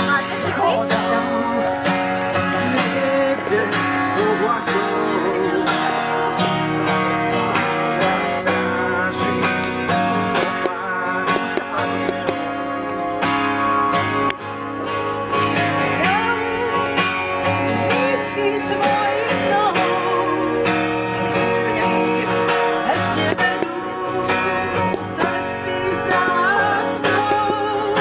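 Acoustic guitar strummed live, with singing over it.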